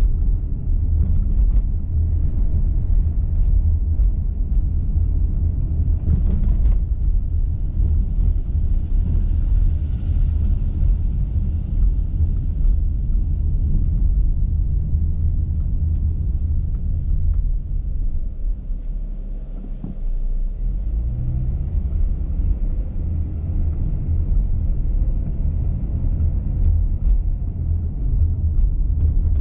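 Low, steady rumble of a car driving along a street: road and engine noise, easing briefly about two-thirds of the way through.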